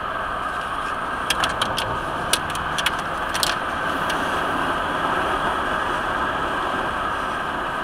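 Steady road and engine noise inside a moving car. A brief run of light clicks comes about a second in and stops about two seconds later.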